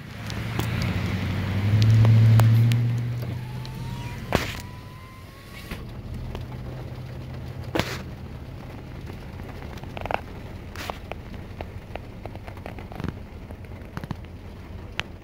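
Scattered drops ticking on a car's roof and windshield, heard from inside the car. In the first few seconds a vehicle's engine hum swells and fades.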